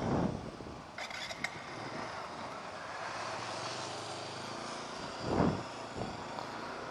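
TVS Apache RTR 160 single-cylinder engine running at low speed while riding off, heard from the rider's helmet microphone, with wind buffeting the mic at the start and again about five and a half seconds in. A couple of short high-pitched toots sound about a second in.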